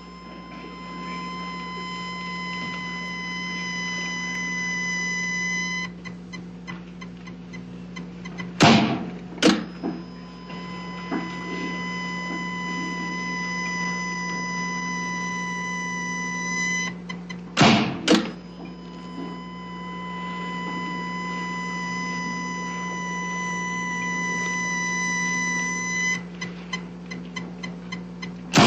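Defibrillator sound effect: a steady high charging tone grows louder for several seconds, cuts off, and gives way to a run of quick clicks. Two loud shock jolts follow, about half a second apart. The charge-and-shock cycle repeats three times, the last jolt landing at the very end.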